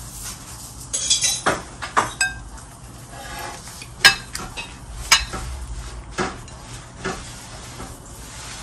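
Cutlery and crockery clinking during a meal: a spoon knocking against ceramic plates and bowls in several separate sharp clinks about a second apart, the loudest near the middle.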